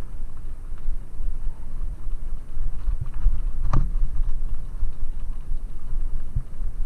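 Wind buffeting a helmet-mounted camera's microphone as a bicycle rolls down a loose gravel track, a steady low rumble with tyre crunch. A sharp knock from the bike about four seconds in, with a couple of fainter knocks around it.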